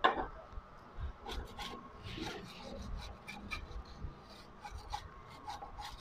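Small paintbrush scrubbing dust off a CRT TV's circuit board: a run of short, irregular scratchy brush strokes. A sharp knock comes right at the start.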